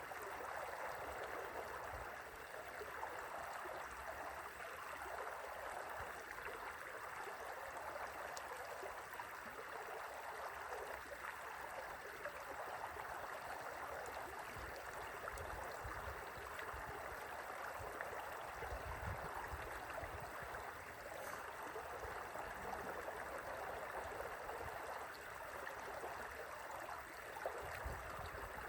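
A river flowing gently: a steady rush and burble of running water.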